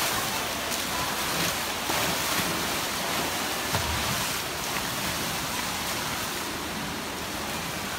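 Pool water splashing and churning as seals swim through it, a steady rush with a few sharper splashes, easing off toward the end.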